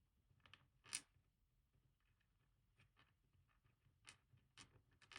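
Faint, scattered small metallic clicks and ticks as tiny brass key pins are picked out of a lock cylinder core one by one, with a sharper click about a second in.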